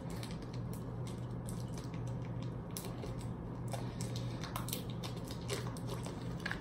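Plastic shrink-wrap being peeled by hand off small metal tins: faint, scattered crinkles and scratches over a steady low hum.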